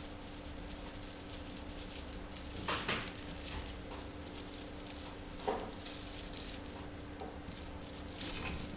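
Siberian chipmunk rustling through dry hay bedding, with a few short crackling rustles a third of the way in, past the middle and near the end, over a steady low hum.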